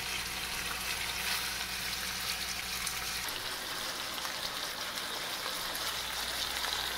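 Chicken thighs sizzling steadily in hot oil as they sear in a frying pan.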